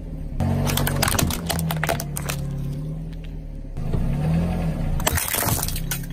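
A car tyre crushing hard plastic over the car's low, steady engine. First a plastic toy truck cracks and snaps in a quick run of sharp cracks lasting a couple of seconds. Then, near the end, a row of small plastic cups shatters in a short burst of cracks.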